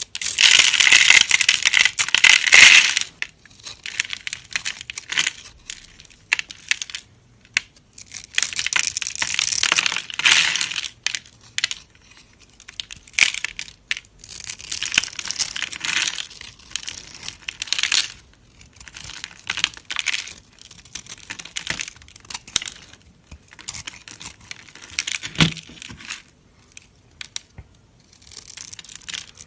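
Knife cutting through dry soap in repeated strokes, each a crisp crunching scrape lasting a few seconds, with sharp little clicks of crumbling soap between strokes; the first stroke is the loudest.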